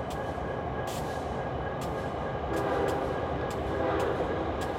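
Union Pacific diesel freight locomotive approaching with a double-stack train, its engine rumbling steadily, with sharp clicks from the wheels on the track every half second to a second.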